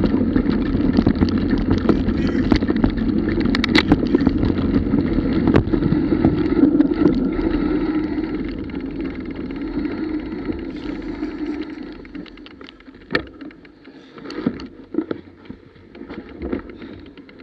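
Rumble and rattle of a mountain bike riding fast over rough grass, picked up by a camera mounted on the bike; it dies away as the bike slows almost to a stop about ten seconds in, leaving scattered clicks and knocks.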